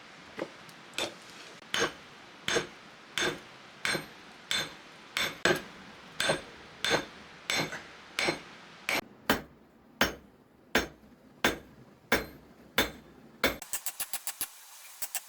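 Hand hammer striking spring steel on an anvil during forging, about twenty steady blows, roughly one and a half a second, each with a short metallic ring. Near the end a faster, quieter, even ticking takes over.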